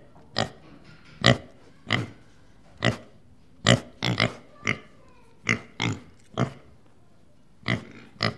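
Domestic pig oinking: about a dozen short, separate grunts at an uneven pace, some in quick pairs, with a pause of about a second before the last two.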